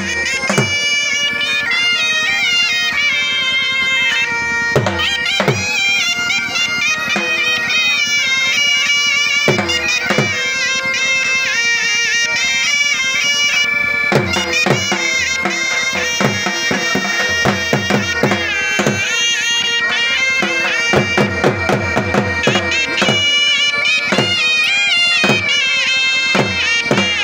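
Folk music for a jhumar dance: a piping reed melody over a steady held drone, with low drum strokes that fall in pitch, at times in quick runs.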